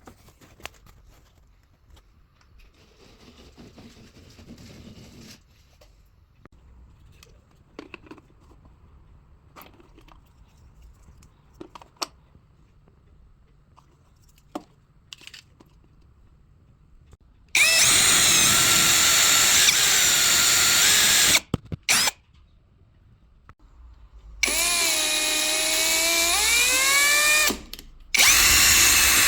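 Electric drill running in three main bursts and a short blip, its motor whine dipping and rising in pitch under load. Before these, faint clicks and knocks of handling.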